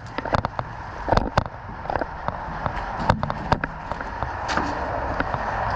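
Irregular single pops and sharp clicks from airsoft guns firing during play, over a steady rushing noise that grows louder near the end.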